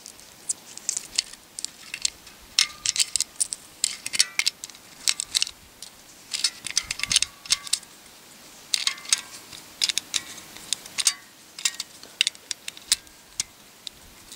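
.22 Short cartridges being pressed one at a time into the Vostok Margolin pistol's magazine: repeated clusters of small metallic clicks and brass clinks, some with a brief ring, as each round snaps in under the feed lips.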